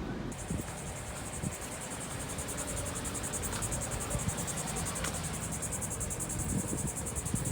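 Crickets trilling in a steady, rapid, high-pitched pulse that sets in abruptly, over a low background rumble.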